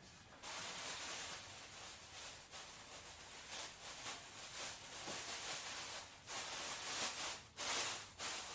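A hissing, rustling noise that comes in about half a second in and swells and fades, with its strongest surges near the end.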